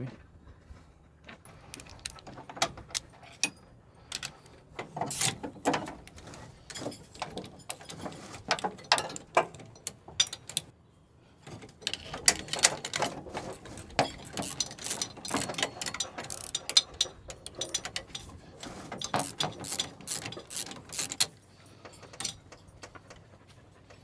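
Irregular metallic clinks and rattles of a roller drive chain being worked around the sprocket of a combine's feeder house drum, with wrenches knocking against the chain and fittings. There is a brief pause about halfway through.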